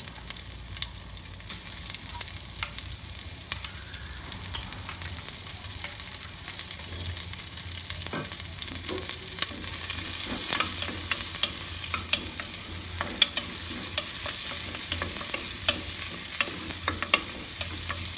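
Sliced onions sizzling in hot ghee in a pressure cooker, with a wooden spoon stirring and scraping the pot and making scattered sharp clicks. The sizzle grows a little louder about halfway through as the onions are stirred toward browning.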